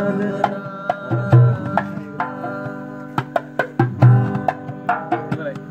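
Acoustic guitar chords ringing under a hand drum played with the hands: sharp slaps several times a second and a few deep thumps, with no singing.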